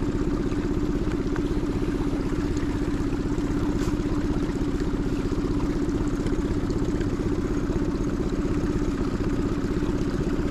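Small outboard motor running steadily at low speed, with an even, unchanging drone.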